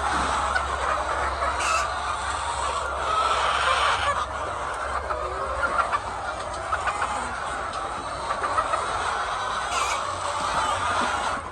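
A flock of many hens clucking and calling together in a poultry house, a dense continuous chatter, with a low steady hum underneath.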